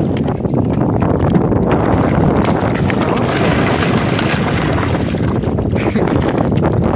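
Steady loud rushing of wind buffeting the microphone aboard a small boat on the water.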